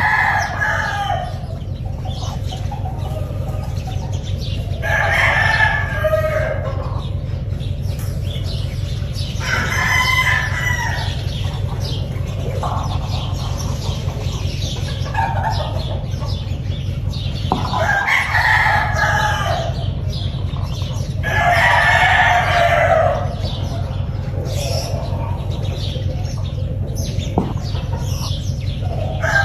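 Gamefowl roosters crowing one after another, a call of a second or two every few seconds, over a steady low hum.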